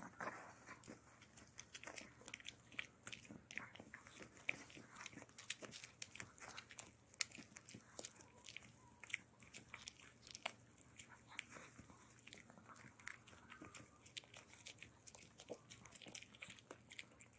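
Long-haired Chihuahua gnawing a ridged dental chew stick: irregular crunching and clicking bites, several a second.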